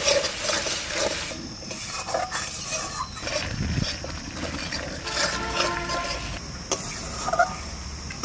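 Spatula stirring and scraping a thick onion-and-spice paste as it fries in a metal kadai, with irregular scrapes and clicks against the pan.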